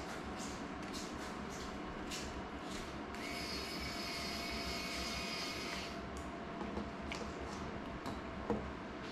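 Small tools and parts clicking on a workbench, then a steady electric whir for about three seconds, and a single sharp click near the end.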